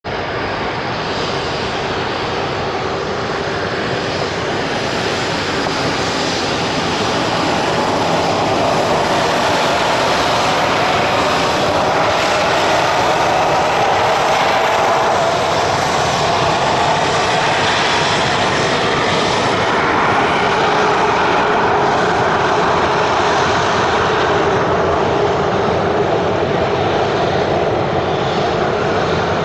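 Boeing 737-400's twin CFM56-3 turbofan engines at taxi power: a steady jet whine and rush as the airliner taxis past, growing a little louder over the first several seconds.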